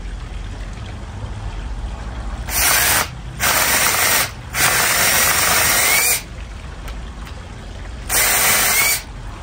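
Cordless drill boring a hole into the end of an aspen log in four bursts, starting a couple of seconds in, the longest about a second and a half, with a faint rising whine as the motor spins up.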